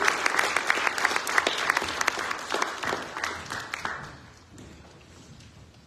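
Congregation applauding, dense clapping that thins and dies away about four seconds in.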